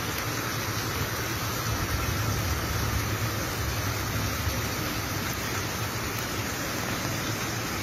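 Steady noise of a car driving on wet, flooded road in rain: a low engine and road hum under an even hiss of rain and tyre spray.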